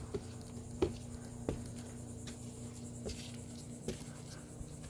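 A few short clicks and scratchy rubbing over a steady low hum.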